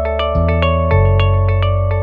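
Background music: a quick, evenly paced run of plucked notes over held low bass notes that change about every half second.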